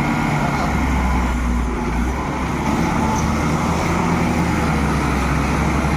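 Heavy diesel engine running steadily under load, a deep continuous drone.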